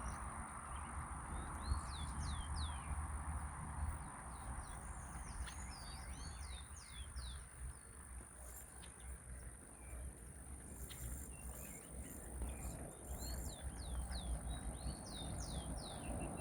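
Birds chirping in several short bursts of quick rising and falling notes, over a fluctuating low rumble and a steady thin high whine.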